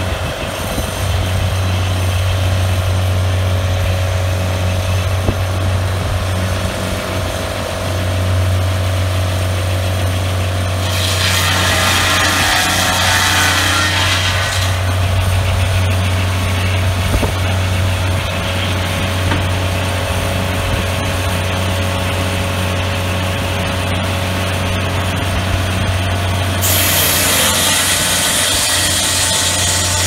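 Engine of a Turbosawmill Gladiator M12 swingblade sawmill running steadily, with its circular blade cutting through the log twice: once about a third of the way in for a few seconds, and again starting near the end.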